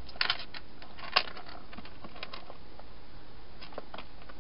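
A wild hedgehog eating and moving about inside a clear plastic feeding box: irregular sharp clicks and crunches, a quick cluster at the start and the loudest a little over a second in, over a steady hiss.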